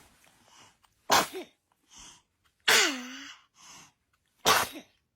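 A baby sneezing three times, about a second and a half apart. The middle sneeze ends in a short note that falls in pitch.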